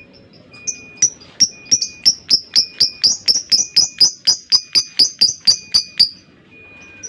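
Lovebird calling a long run of sharp, high chirps, about three to four a second and speeding up, ending about six seconds in: the long chatter that lovebird keepers call ngekek panjang.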